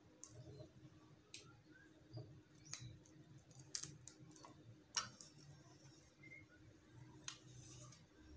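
Faint, scattered clicks and crinkles of plastic gift ribbon being pressed by hand onto packing strap to set the glued joint, the sharpest tick about five seconds in.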